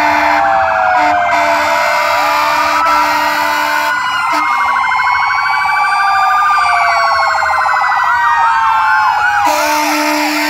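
Several fire truck sirens sounding at once, their slow rising-and-falling wails overlapping one another. A fast warbling yelp runs through the middle, and shortly before the end it changes to a quick series of short repeated whoops.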